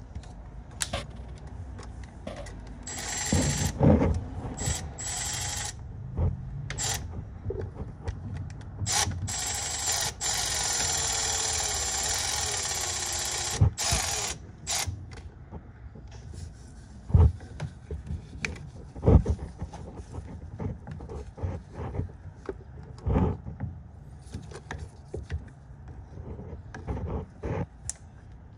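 Hand tools clicking and knocking irregularly against metal parts in a car engine bay. A steady rushing noise runs for a few seconds in the middle.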